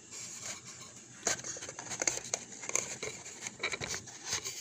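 Irregular light clicks, knocks and rustles of things being handled in a kitchen, starting about a second in.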